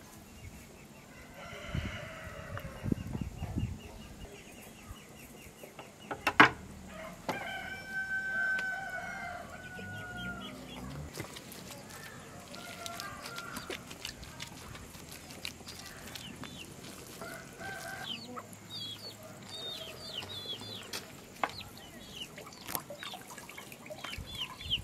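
A rooster crowing once, a long call about eight seconds in that drops in pitch at its end, with other chicken calls around it and small birds chirping toward the end. A sharp knock shortly before the crow is the loudest sound.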